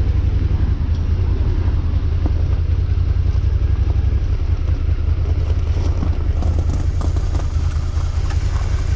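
Suzuki SV650 motorcycle's V-twin engine running steadily at low revs as the bike rolls slowly.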